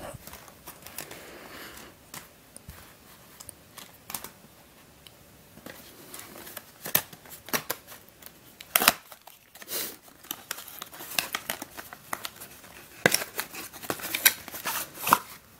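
Small cardboard puzzle box being handled and opened by hand, with a paper leaflet pulled out: scattered scrapes, taps and paper rustling, with sharper snaps about nine seconds in and a run of crinkles near the end.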